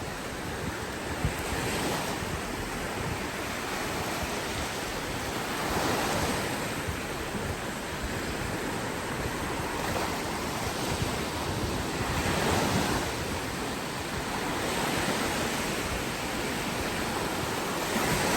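Sea waves breaking and washing up a beach, the surf swelling every three to four seconds, with wind rumbling on the microphone.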